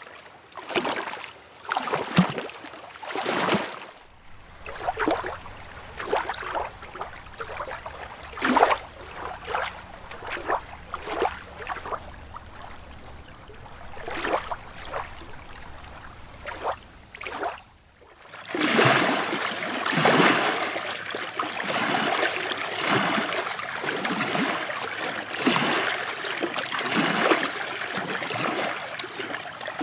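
Water lapping and splashing in irregular strokes. About 18 seconds in it changes abruptly to a louder, denser, continuous splashing.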